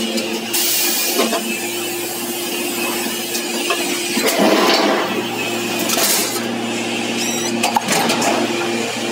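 Multi-station hydraulic press line running with a steady machine hum, its low tones dropping in and out. Several short bursts of hiss and a few light metallic clinks come over it.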